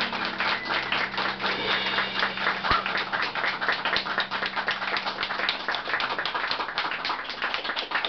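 A small group applauding by hand after a song, a dense, steady patter of claps. A low held note fades away under the clapping about six seconds in.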